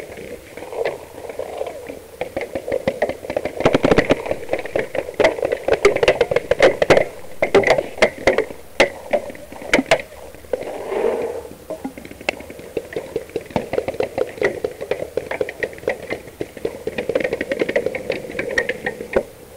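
Paintball markers firing in rapid, irregular strings of sharp pops, with some closer, louder cracks in clusters through the middle.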